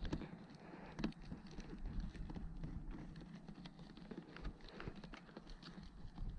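Irregular light knocks and taps over a low steady hum.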